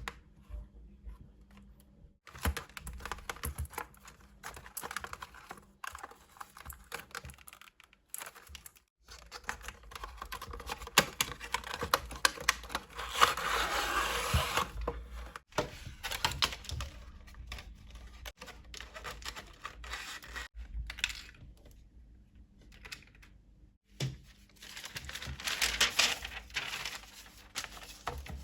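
Close-miked handling of art supplies: irregular clicks and taps with bursts of crinkling, tearing and scraping, the loudest about twelve seconds in and again near the end.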